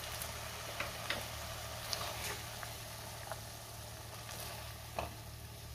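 Dry-prawn bhaji sizzling softly in a hot non-stick kadhai while it is scooped out onto a plate, with about half a dozen short scrapes and knocks of the serving utensil against pan and plate.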